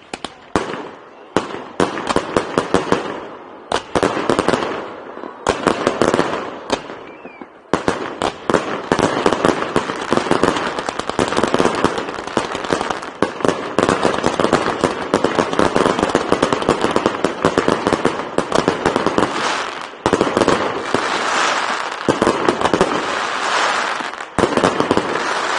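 Fireworks crackling and popping in a dense, rapid run of small bangs. It stops briefly a few times in the first eight seconds, then carries on almost without a break.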